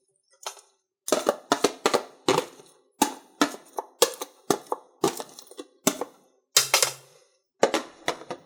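Potato masher clacking down again and again on drained, blanched spinach: a string of sharp knocks, two or three a second, unevenly spaced.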